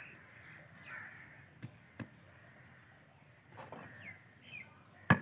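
A few faint crow caws, with two light knocks close together a little under two seconds in as bricks are set in place.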